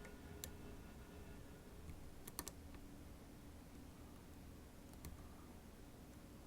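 Faint, sharp metallic clicks of a DOM RS8 lock cylinder being picked: a single click, then three in quick succession, then another a few seconds later.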